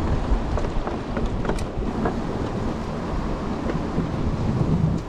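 Mountain bike rolling down a trail: heavy wind rumble on the microphone and tyre noise, with scattered small clicks and rattles from the bike.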